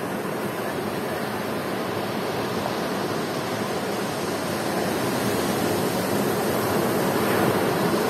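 Ocean surf breaking and washing up onto a sandy beach: a steady rushing noise that grows a little louder toward the end.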